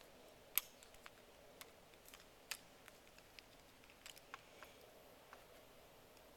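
Faint, scattered clicks and taps of small plastic toy parts being handled, as a Patrick figure's hands are worked into its toy cannon.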